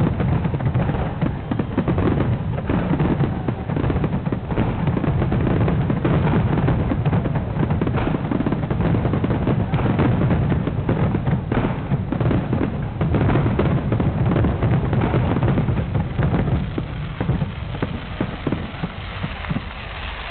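Fireworks display: a dense, continuous barrage of bangs and crackling from bursting shells, thinning out over the last few seconds.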